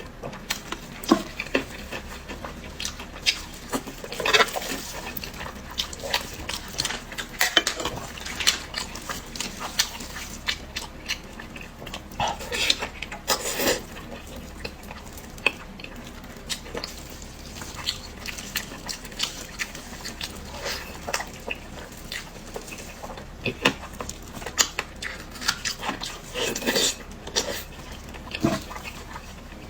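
Close-miked eating sounds of someone chewing pig's head meat: irregular wet chewing, lip smacks and mouth clicks, one after another.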